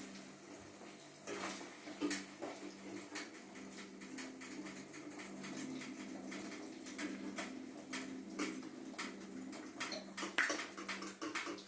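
A fork tapping and scraping in a frying pan of cooking eggs, popping the bubbles: many light, irregular clicks over a low steady hum.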